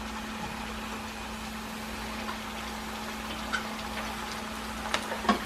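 A steady low hum under an even hiss of frying. Near the end come a few sharp metal clinks of a metal colander knocking against the rim of a stainless steel pan as shredded cabbage is tipped in.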